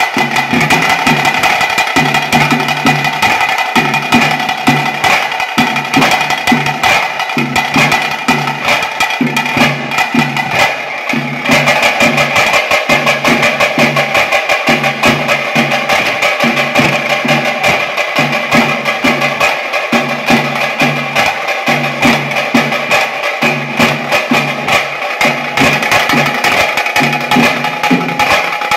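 A tase and dhol drum troupe plays the fast, driving pili vesha tiger-dance beat: rapid stick strikes over evenly repeating deep drum beats, easing briefly about ten seconds in before picking up again.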